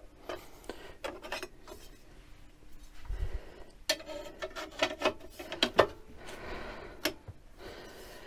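Irregular clicks, knocks and short metallic clinks of a metal cover plate and its machine screws being handled and fitted onto the CNC machine's frame.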